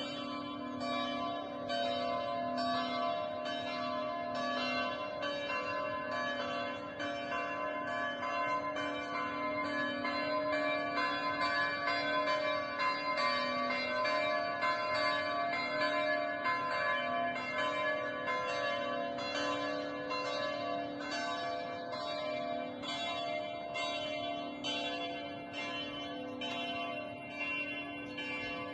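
Swiss village church bells ringing in a continuous peal: overlapping strokes follow one another in a quick, steady succession, each leaving a long ringing hum beneath the next.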